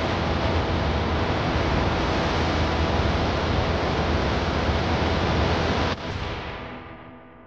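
Steady, loud rushing noise with a low hum and faint sustained tones beneath, part of the closing trailer-style background music. It cuts off sharply about six seconds in, leaving a ringing, gong-like tone that fades away.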